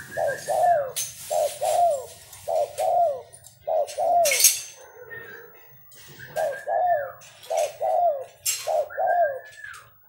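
Caged spotted dove cooing: a run of short, falling two-note phrases repeated every second or so, with a pause in the middle, and a higher drawn-out note sliding down at the start and near the end. A few brief hissing noise bursts come in between, the loudest about four seconds in.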